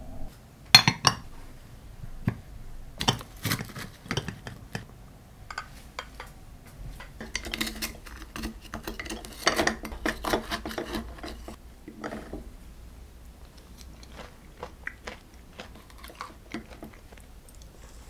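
Spoon clinking and scraping in a glass mug as thick yogurt and granola are stirred, with scattered sharp clinks of glass and cutlery, the loudest in the first few seconds.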